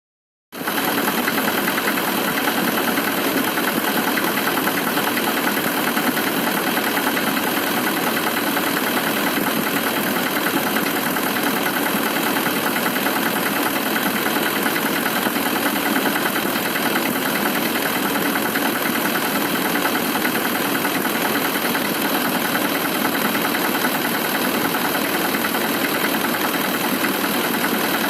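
Toyota 1VD-FTV V8 turbodiesel idling steadily, with the knock ("стук") that the recording was made to show. It starts about half a second in.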